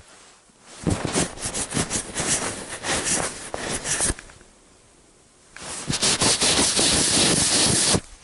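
Close rubbing and handling noise right on the action camera's housing and microphone as the camera is wiped off and handled, wet with coolant. It comes in two scratchy stretches, the first starting about a second in, the second starting past the middle and stopping just before the end.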